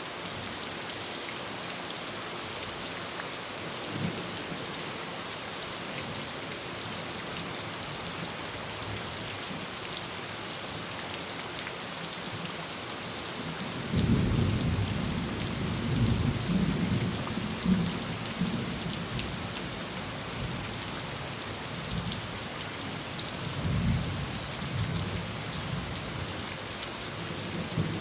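Heavy rain falling on a tin roof as a steady hiss. About halfway through, thunder breaks in suddenly and rolls on for several seconds, with a second, shorter rumble of thunder near the end.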